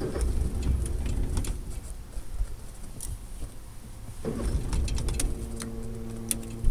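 Electric power-tilt motor of a pontoon boat's outboard humming steadily in two spells: about a second and a half at the start, then again for the last two and a half seconds, as the outboard is tilted.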